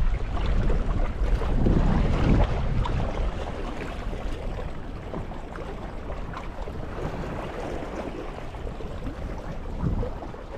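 Wind buffeting the microphone over the wash of the sea, gusting hardest in the first couple of seconds and then easing.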